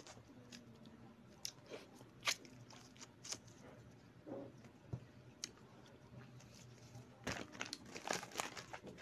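Close-up mouth sounds of biting and chewing a Fudgee Barr snack cake, with small wet clicks scattered throughout. Near the end, a dense run of crackling as the plastic wrapper of the next bar is handled.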